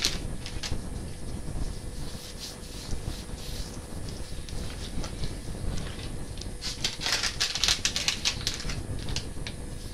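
Crinkling and rustling of a plastic seasoning packet as spice is shaken out of it onto a whole catfish, with softer rubbing of hands over the fish's skin. The rapid crackling is densest about seven to eight and a half seconds in.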